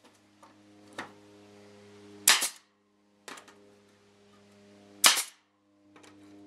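Pneumatic air stapler shooting staples through aluminium trailer siding into the wooden framing. There are two loud sharp shots about three seconds apart, each with a quick second crack, and a fainter click about a second in.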